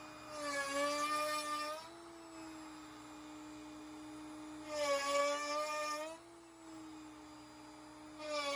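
CNC router spinning a 7/8-inch box cove bit, a steady high whine that gets louder and dips slightly in pitch each time the bit plunges into hardwood plywood to carve a divot: three cuts of about a second and a half, roughly every four seconds, the last starting near the end.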